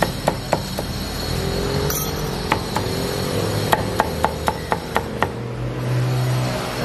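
Cleaver chopping roast meat on a thick round wooden chopping block: a few single chops, then a quick run of about seven chops, about four a second, past the middle. A steady background hum runs underneath.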